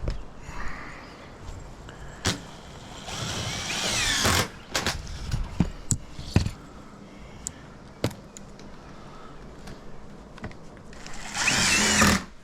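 A small power tool's motor whining in two runs of about a second each, its pitch wavering up and down. Scattered knocks and clicks come between the runs.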